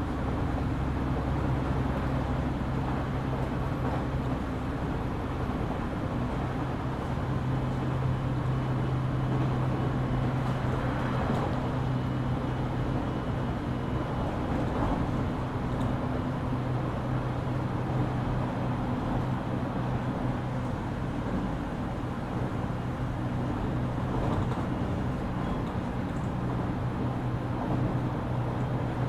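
Onboard running sound of a JR Kyushu 817 series electric train at a steady speed: continuous wheel and rail noise under a steady low hum. The unit is an odd-sounding car whose running sound is likened to a Keio 7000 series.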